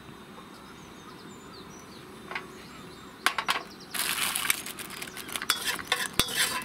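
Chicken pieces frying in hot oil in a wok on a portable gas stove. A few knocks come near the middle, then a loud sizzle starts suddenly about four seconds in, with a spatula clacking and scraping against the wok as the chicken is stirred.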